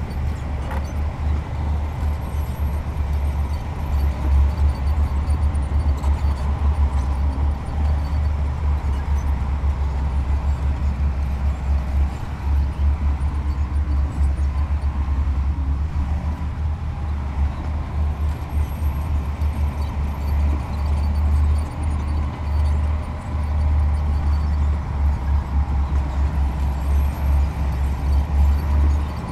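Diesel engine of a heavy earthmoving machine running steadily, a continuous low rumble that wavers in level, with a faint steady whine above it.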